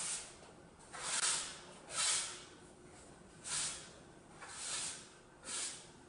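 Broom bristles swishing across the floor in short, repeated strokes, about six of them, roughly one a second.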